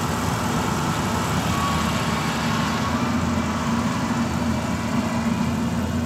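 Yanmar AG600A combine harvester's diesel engine running steadily as it cuts rice, a continuous low hum.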